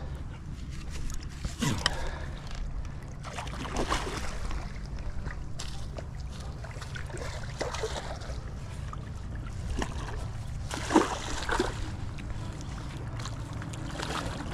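Water sloshing and splashing as a hooked carp is played close to the bank, over a steady low rumble of wind on the microphone. A few short sharper splashes or knocks stand out, the loudest about 11 seconds in.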